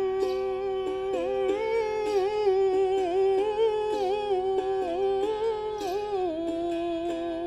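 A woman's voice singing a long wordless held line in Baul style, bending and ornamenting the note and settling lower about six seconds in, over the steady pulse of a plucked ektara (gopiyantra) and a small duggi drum struck by hand.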